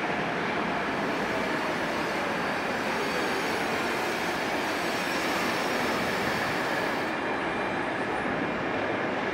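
Tatra T6A5 tram approaching and slowing into a stop: steady rumble of wheels on rails, with a faint whine that falls in pitch over the first few seconds.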